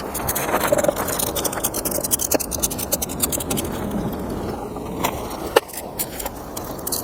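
Ratchet and 10 mm socket undoing the coil-pack bolts on a V12 engine: rapid metallic clicking and scraping, with a couple of sharp knocks about five seconds in.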